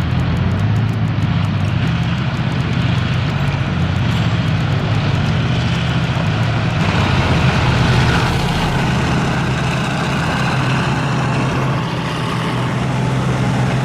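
A vehicle engine running steadily and loudly, with a low, even drone.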